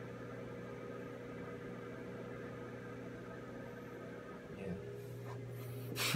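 Midea microwave oven running with a steady hum. Near the end a brief loud rustle of handling noise.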